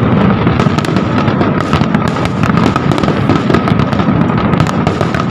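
Many fireworks going off together: a dense, unbroken crackle of bangs and pops, with a faint steady whine underneath.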